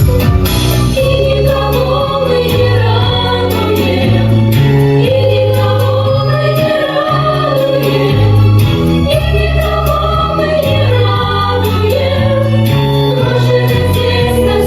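A song from the musical, sung by a group of voices over a backing track with a steady beat and a stepping bass line.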